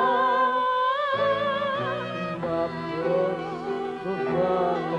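Women's voices holding the last sung note of a phrase with a wide vibrato, ending about two seconds in, over an orchestral accompaniment with strings that then carries on alone.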